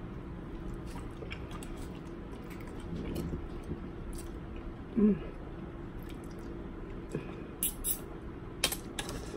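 Quiet eating sounds: chewing and soft wet handling of seafood, with a brief hum about halfway and a few sharp clicks near the end.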